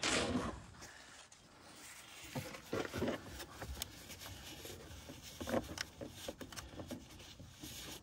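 Faint rubbing and rustling of paper towels wiping around the battery area, with a few light taps and ticks scattered through.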